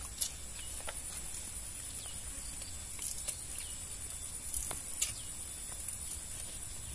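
Steady high-pitched insect chirring in a grassy field, with a few short sharp clicks scattered through.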